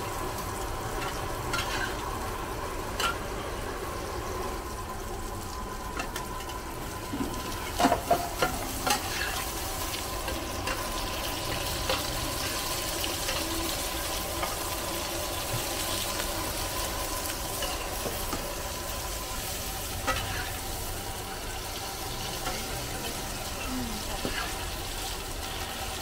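Oyster omelette (hoi tod) frying on a hot pan: a steady sizzle, with occasional clinks of a spatula and a few louder knocks about eight seconds in.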